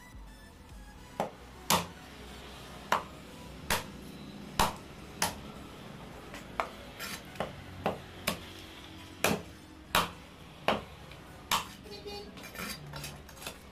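Heavy knife chopping a katla fish head on a wooden stump block: a series of sharp chops, irregular and roughly one a second or a little faster, with a run of smaller, quicker knocks near the end.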